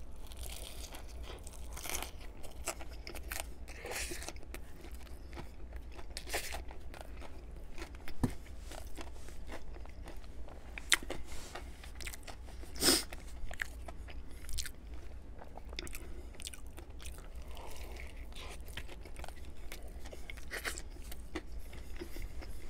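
Close-miked biting and chewing of a fried chicken sandwich: a big bite into the bun and breaded chicken at the start, then steady chewing with scattered crunches, the loudest around eleven and thirteen seconds in.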